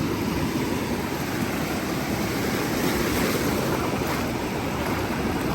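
Ocean surf breaking and washing in the shallows, a steady rushing wash, with wind buffeting the microphone.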